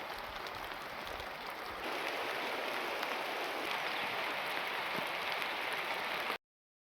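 Heavy rain falling steadily, an even hiss that grows a little louder about two seconds in. It cuts off abruptly near the end.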